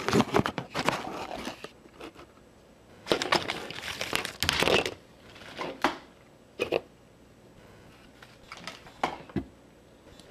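Handling noise of a camera being moved and propped in place: two longer spells of rustling and scraping, then a few short sharp taps and clicks as it is set down.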